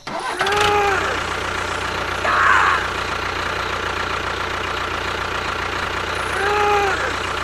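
Small engine of a miniature DIY tractor running steadily at a low, even pitch. Over it, a short melodic phrase of background music comes twice, about six seconds apart.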